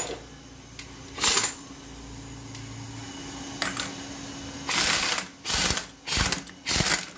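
A pneumatic wrench run in short bursts, about six of them, loosening bolts on an automatic transmission case. The longest burst comes a little before five seconds in, and the last three follow just under a second apart.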